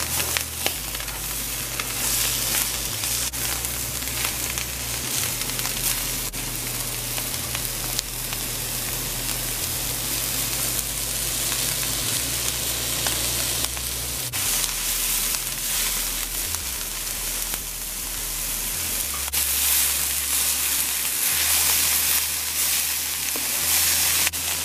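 Sliced bitter melon and dried shrimp sizzling steadily in hot oil in a nonstick wok as they finish frying, with chopped tomato just added. A wooden spatula stirs and scrapes through them now and then.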